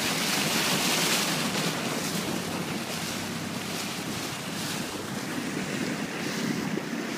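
Sea water rushing and splashing beside a moving boat, with wind buffeting the microphone and a faint low steady hum underneath.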